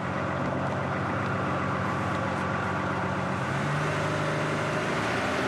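Fishing boat's engine running steadily with a low hum. A little past halfway its note shifts slightly as the throttle lever is moved.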